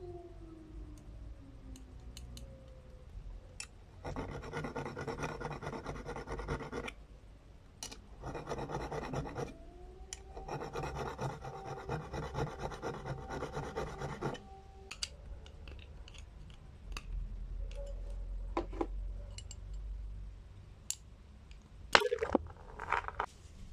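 A small hand file rasping on the rusty steel pivot rivet of old pliers in quick back-and-forth strokes, in three spells with short pauses between them. Near the end come a few sharp metal clicks and clinks as the pliers are handled.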